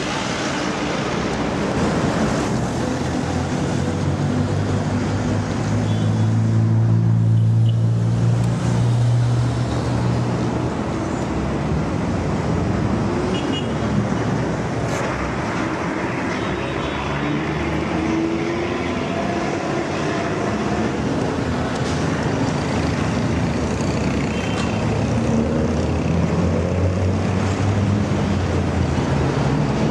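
Road traffic on a busy city avenue: cars, taxis and trucks running past in a steady wash of engine and tyre noise. A louder engine hum swells and fades about six to ten seconds in, and another near the end.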